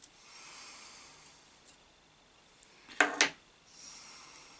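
Small hand-handling noises as crimp connectors are worked onto motor terminal posts: faint rustling, and about three seconds in two sharp clicks a fraction of a second apart.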